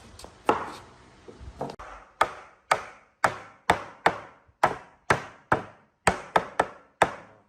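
Repeated blows struck on wood: a few scattered knocks, then from about two seconds in a steady run of about a dozen sharp strikes, roughly two a second, each dying away quickly.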